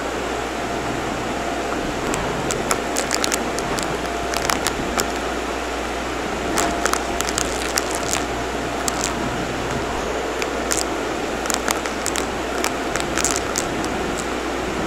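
Shark upright vacuum cleaner running on a laminate floor: a steady motor and airflow rush with a faint whine, and frequent sharp clicks and crackles as small bits of debris are sucked up.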